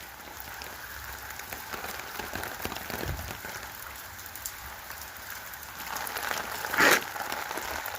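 Steady rain falling, with many small ticks of drops hitting surfaces. About seven seconds in there is a brief, louder rush of noise.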